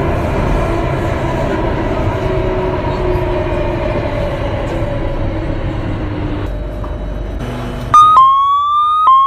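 North East Line train running, heard inside the car, with a motor whine slowly falling in pitch as the train slows. About eight seconds in, the door-closing warning tone starts: loud rising beeps repeated about once a second.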